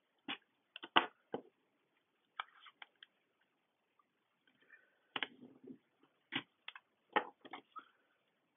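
Washi tape and paper being handled on a planner page: a scattered series of short clicks and taps, the sharpest about a second in, with a brief soft rustle about five seconds in.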